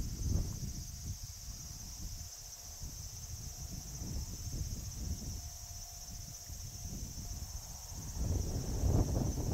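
Insects chirring steadily in a high, even band, over a low fluctuating rumble that grows louder near the end.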